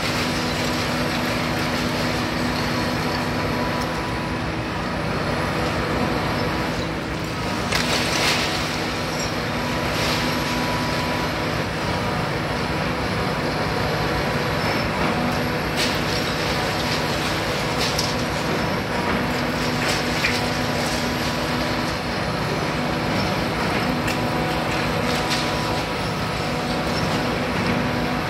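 Hitachi Zaxis 350 high-reach demolition excavator's diesel engine running steadily, with a handful of sharp cracks as its jaw attachment breaks concrete and masonry at the top of the building.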